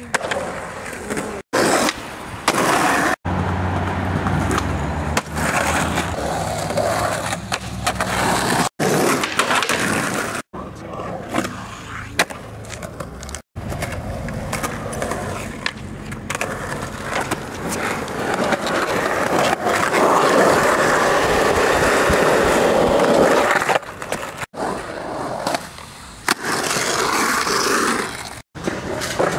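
Skateboard wheels rolling on concrete, with the board's pops and landings from flip tricks, in a string of short clips that cut off abruptly several times. A louder stretch of steady rolling noise comes about two-thirds of the way through.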